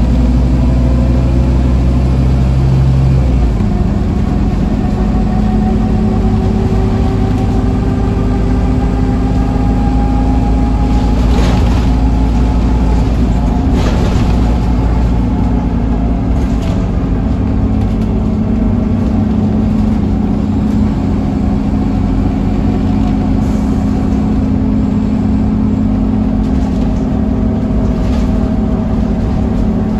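Scania N230UD OmniCity double-decker bus's five-cylinder diesel engine running under way, heard from inside the lower saloon, with a whine that glides slowly up and down in pitch. The engine note drops about three and a half seconds in. A few brief knocks come through the body around the middle.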